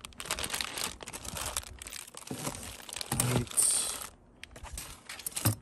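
Clear plastic parts bags crinkling and rustling as bagged brake brackets are handled and packed back into a cardboard box, with a brief lull about four seconds in.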